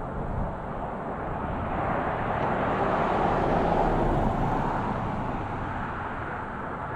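Farm machinery running with a steady rumble that swells to its loudest about four seconds in and then eases off.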